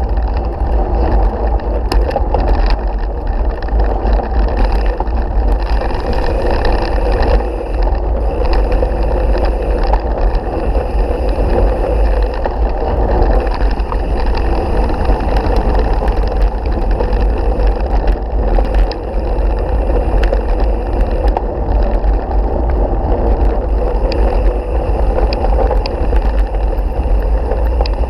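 Mountain bike ridden fast on a gravel road, recorded by a handlebar-mounted action camera: steady wind rumble on the microphone over continuous tyre-on-gravel noise with small rattling clicks.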